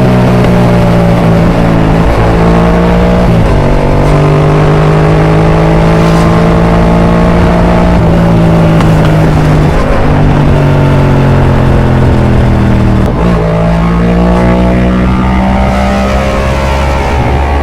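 Yamaha MT-07's 689 cc parallel-twin engine through an Arrow aftermarket exhaust, heard while riding. The engine note rises and falls with the throttle, with breaks in the pitch about 3.5, 10 and 13 seconds in that fit gear changes.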